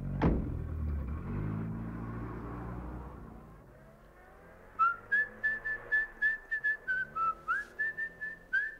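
A sharp thump, then a car engine running as the car pulls away, its hum fading over the first few seconds. About five seconds in, a man starts whistling a tune in short, quick notes.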